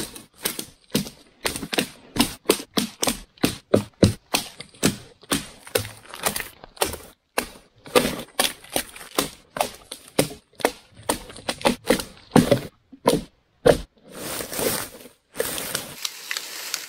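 Dry dead wood cracking and snapping: branches being broken off a fallen tree, many sharp cracks in quick succession, about two or three a second. Near the end it gives way to a steadier brushing rustle of branches.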